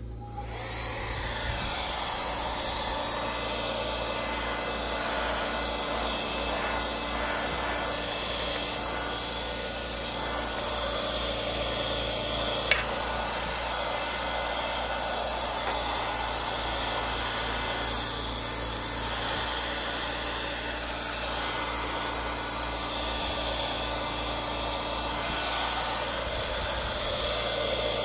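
Small handheld vacuum cleaner running steadily while it vacuums around a coffee grinder's base, with one sharp click about halfway through.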